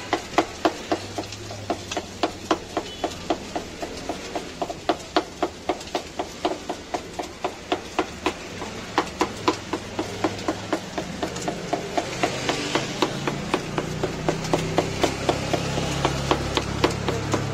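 A large knife chopping grilled kokoreç on a wooden cutting board: a steady run of sharp knocks of the blade on the wood, about three a second. A low hum comes in underneath during the second half.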